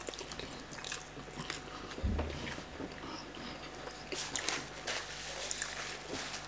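People chewing and biting cooked chicken and pulling it apart by hand: wet mouth sounds and irregular small clicks and crunches, with one low thump about two seconds in.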